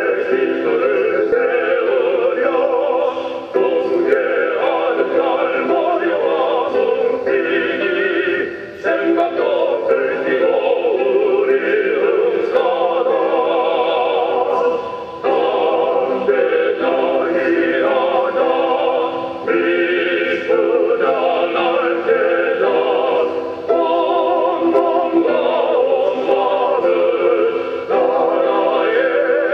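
Slow vocal music: a singer with wide vibrato over a sustained accompaniment, in long phrases with short breaths between them.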